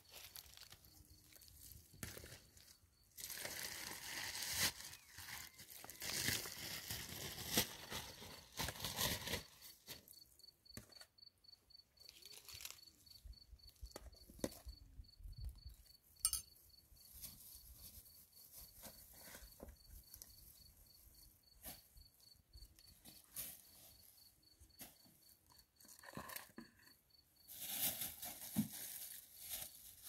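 Rustling and splashing as wild greens are worked and rinsed in a plastic bowl of water, loudest in a long spell early on and again near the end. An insect trills steadily in fast, even pulses.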